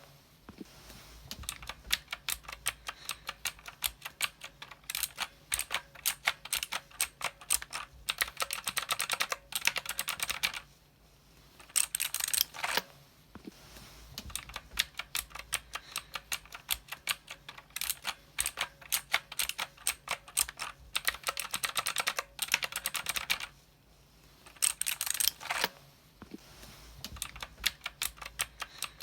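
Typing on a mechanical keyboard: a steady run of sharp key clicks, breaking into faster flurries several times and pausing briefly twice.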